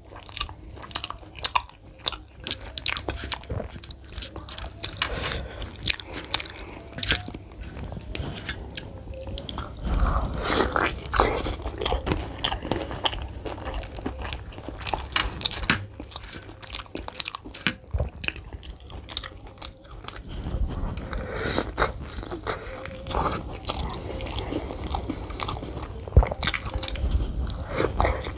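Close-miked chewing and biting of fried snack food dipped in chickpea curry (chole), with dense crunching clicks and a few louder stretches of chewing.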